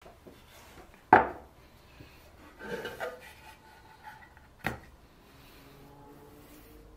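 Birch dovetail box and its lid handled on a wooden workbench: a sharp wooden knock about a second in, a short stretch of wood rubbing and scraping around three seconds, and a second knock near five seconds as the pieces are set down.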